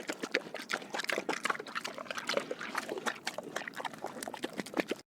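Pig drinking water: a quick, irregular run of wet slurps and laps that cuts off suddenly near the end.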